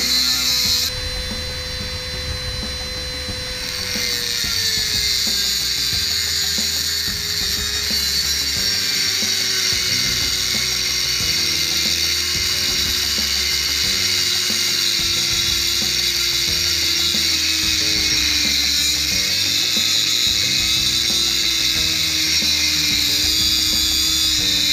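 Corded rotary tool with a small cutoff wheel grinding into a steel gate post: a steady high-pitched whine with a grinding hiss, its pitch drifting slowly lower as it cuts.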